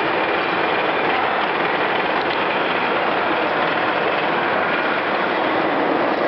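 Steel-rod derusting and wire drawing machine running, its grooved rollers working a steel rod as it is pulled through: a steady, even mechanical noise.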